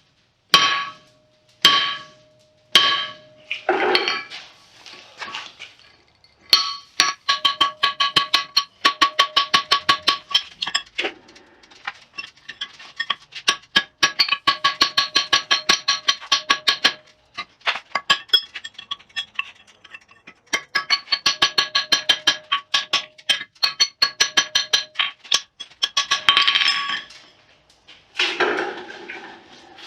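Hand hammer striking steel on an anvil, each blow ringing out: a few single blows, then long runs of quick blows at several a second with short pauses between them, as a drift is driven into the eye of a forged hammer head.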